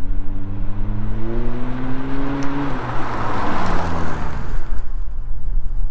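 Mazda 3 Turbo hatchback's turbocharged 2.5-litre four-cylinder, breathing through a Corksport cat-back exhaust with a Vibrant resonator, accelerating hard toward the microphone with its note climbing for nearly three seconds. It passes close about three and a half seconds in, and its pitch falls as it pulls away.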